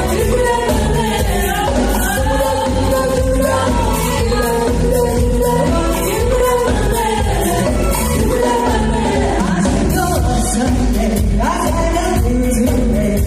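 Upbeat R&B/pop song: a wavering sung vocal line over a steady drum beat and heavy bass.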